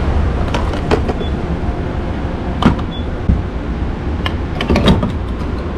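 Diesel pump nozzle lifted from the pump and pushed into a pickup's fuel filler, giving a handful of short clunks and clicks, the loudest about two and a half seconds in, over a steady low rumble.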